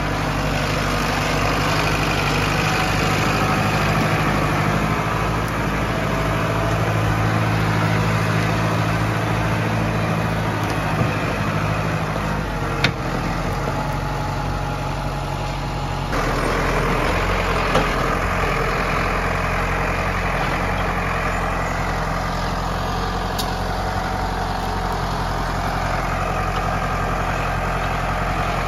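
Zetor Forterra 140 HSX tractor's four-cylinder diesel engine running steadily while hauling a loaded forestry log trailer. There is a single sharp clack around the middle, and a few seconds later the engine note shifts and brightens.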